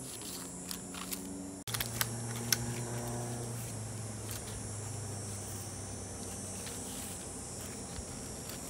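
Shih Tzu puppy chewing dry leaves: scattered soft crackles and clicks of the brittle leaf in its mouth, over a steady low background hum.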